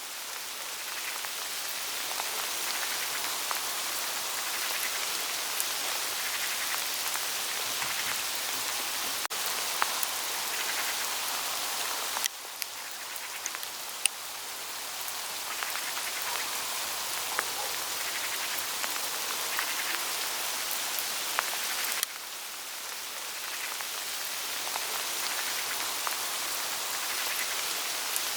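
Small hailstones falling through autumn forest foliage: a steady hiss of many tiny hits on leaves, with scattered sharper ticks. The sound drops suddenly twice and slowly swells back each time.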